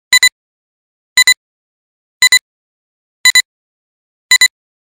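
Electronic countdown beeps from a film-leader style countdown: a pair of quick, high beeps once a second, five times, with silence between.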